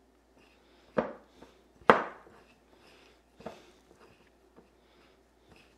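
Fingers stirring a dry cure of salt, brown sugar and pink curing salt in a small ceramic bowl: a faint gritty rustle with three sharp clinks of the bowl, about one, two and three and a half seconds in, the second the loudest.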